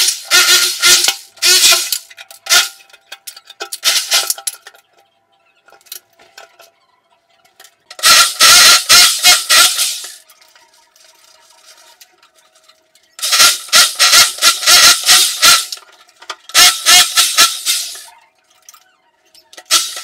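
Corded electric rotary hammer with a chisel bit chipping ceramic wall tile and mortar, breaking them out around a shower mixer valve to expose the old valve for removal. It runs in short bursts of one to three seconds, about four in all, with pauses between, and makes a rapid hammering over a steady motor whine.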